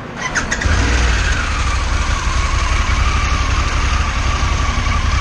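Harley-Davidson Pan America 1250 Special's V-twin started on the button: brief starter clicks, then the engine catches under a second in and settles into a steady idle. A high whine over the idle drops in pitch over the next couple of seconds as the fast start-up idle settles.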